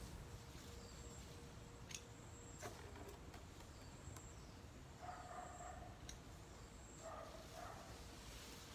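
Near silence with two short, faint animal calls, about five and seven seconds in, and a couple of light clicks around two to three seconds in.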